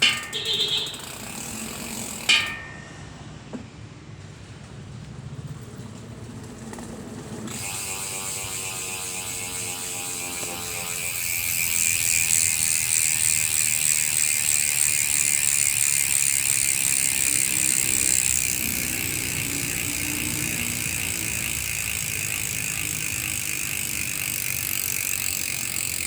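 SRAM X9 four-pawl rear hub freewheeling: a few separate clicks at first, then a fast, continuous ratchet buzz from the spinning wheel that grows louder partway through and eases slightly in the last third. After almost three years of use the hub still sounds unchanged, its pawls engaging normally.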